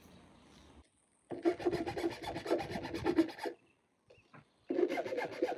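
Hand file scraping back and forth across the end of a wooden chair leg. It comes in two spells of rapid, even strokes with a short pause between them.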